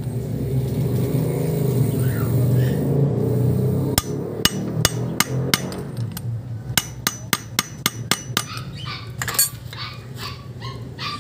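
Hammer striking a steel drift to drive a new oil seal into the aluminium pinion housing of a Hyundai Getz power-steering rack: sharp metallic taps. There are a few single blows about four seconds in, then a quicker even run of about five a second, over a steady low hum in the first few seconds.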